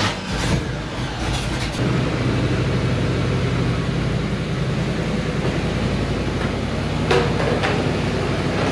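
1964 Chevrolet pickup's engine running steadily as the truck reverses slowly out of a carport.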